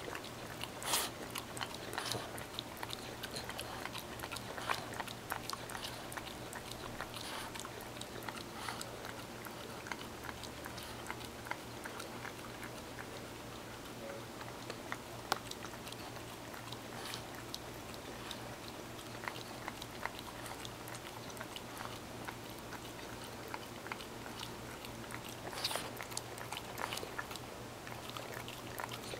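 French bulldog licking cream cheese off its muzzle and whiskers: wet tongue and lip smacks, irregular and scattered, a few a second at times.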